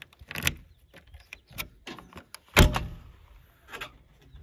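Key working in the lock of a JCB backhoe loader's cab door with a few small clicks, then the door unlatching and swinging open with a loud clack about two and a half seconds in, and another click near the end.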